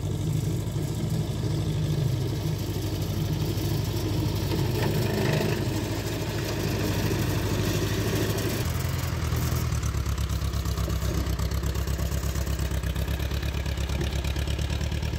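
John Deere 2120 tractor's diesel engine running steadily while the front loader pushes dirt, the engine note dropping lower a little over halfway through.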